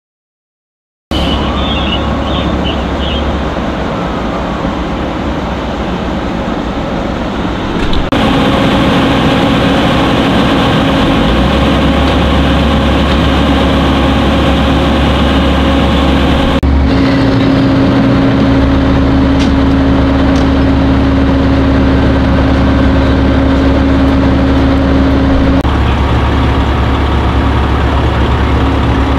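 Fire trucks' diesel engines running at close range, starting about a second in: a loud, steady low rumble with a steady hum over it, which jumps abruptly at a few cuts between shots.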